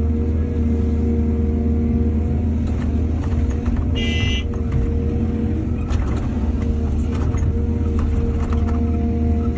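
Excavator's diesel engine running steadily, with a few scattered knocks and a brief high-pitched tone about four seconds in.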